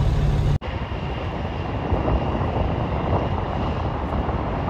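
A truck's idling engine hums in the cab for about half a second. Then the sound cuts to steady outdoor noise at a truck stop: a rush of wind on the microphone and traffic, with a faint high whine.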